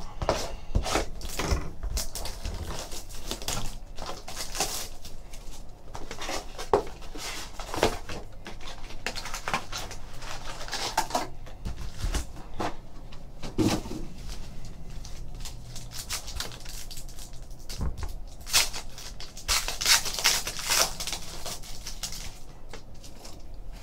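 Handling noise from opening a trading card hobby box and its foil packs: a box cutter slitting the wrap, cardboard scraping and tapping, and packs rustling. Near the end comes a longer, denser crinkle as a foil pack is torn open.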